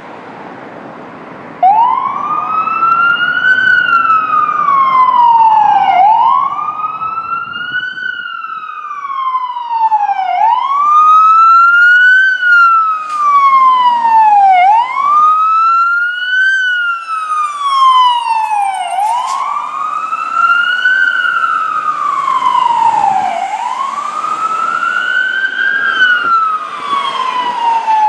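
Fire truck siren sounding a slow wail, rising and falling about every four and a half seconds, as the apparatus responds to a call. It starts about a second and a half in, with a faint engine rumble underneath.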